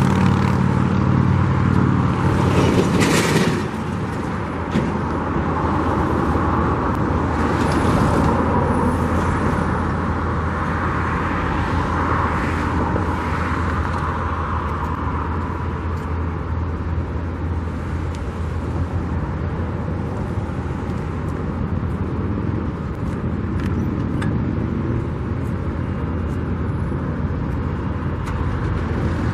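Road traffic noise: a steady wash of passing vehicles on a busy street with a constant low hum. A louder vehicle engine stands out for the first few seconds, then drops away.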